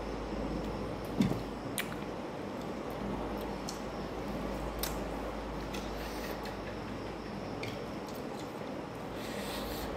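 A boy chewing food while eating with his hands, with a few small sharp clicks and a soft knock about a second in, over a steady low background hum.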